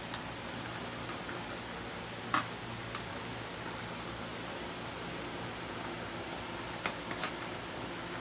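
Metal spoon stirring cheese sauce in an aluminium canteen cup, clicking against the cup a few times, over a steady hiss from the simmering pot on its hand-sanitizer-gel flame.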